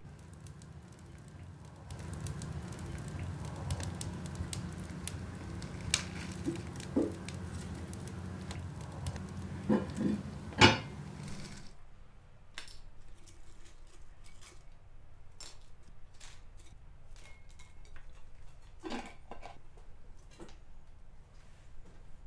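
Kitchen handling sounds: a glass jar of dried porcini and dishes clinking and knocking on a wooden chopping board, with a few sharp knocks, the loudest about halfway through. A steady low hum sits under the first half and stops about halfway.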